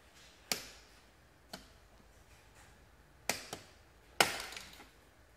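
Sharp plastic clicks and knocks from the car's dashboard trim being pried and handled, five in all, the loudest near the end with a short ring after it.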